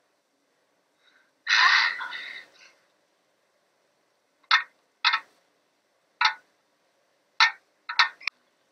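A loud burst about a second long, then a series of short sharp clicks roughly a second apart, the last two close together, as star-marked pieces are set one by one into a panel.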